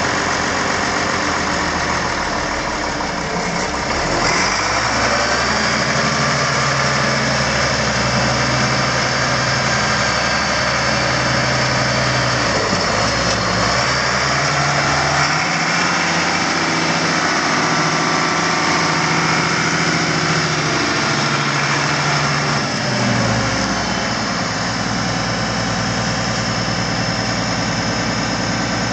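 International Harvester 1486's six-cylinder turbo diesel engine running. Its speed rises about four seconds in, holds there with a brief dip partway through, and settles back down about six seconds before the end.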